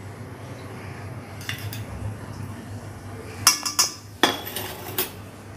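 A steel spoon clinking against a small steel bowl and a stainless-steel kadai as oil is spooned into the pan. There are a few light taps, then a quick run of sharp clinks about three and a half seconds in and one more near the end.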